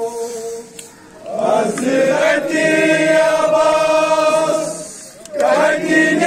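Voices chanting in long held phrases, with short breaks about a second in and again about five seconds in.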